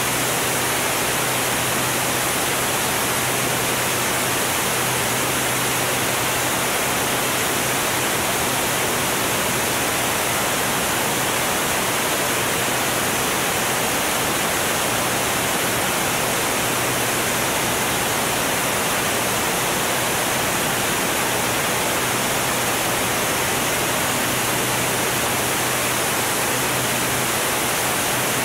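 Steady rush of wind noise on an onboard camera of a Formula One class racing plane flying at about 220 mph, with a low steady engine drone underneath; it stays even throughout.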